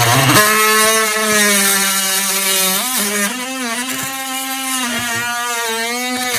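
Oscillating multi-tool running steadily with a box-cutting attachment, plunging into drywall to cut a square electrical box opening. Its pitch sags briefly several times as the cutter bites.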